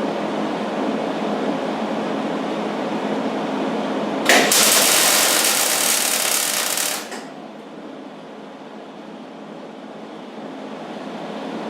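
Millermatic 90 wire-feed welder arc crackling, with a sudden louder, sharper stretch of about three seconds a little before the middle that cuts off abruptly, leaving a quieter steady noise.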